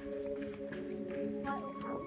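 Background music with steady held notes, and a few faint clicks.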